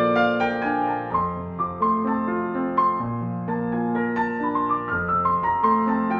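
Background music: a gentle piano piece, sustained chords with a melody moving note by note over a slow-changing bass.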